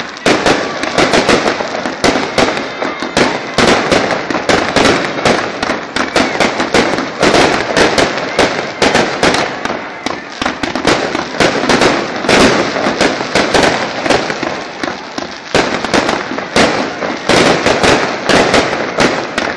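Aerial fireworks, rockets and shells, going off in a rapid, dense series of bangs and crackles with hardly a pause.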